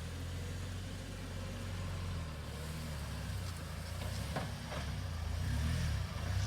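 UAZ Patriot SUV's engine running with a steady low hum, swelling a little louder near the end as the vehicle pulls away across rough ground.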